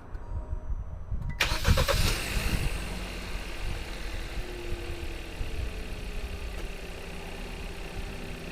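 2018 Kia Rio's 1.6-litre four-cylinder engine cranking and catching about a second and a half in, then settling into a steady idle. This is its first start after an oil change.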